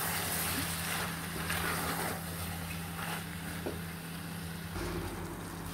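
A wooden spatula stirring beef liver stew in an aluminium pot, with a few soft scrapes over a steady low hum and hiss.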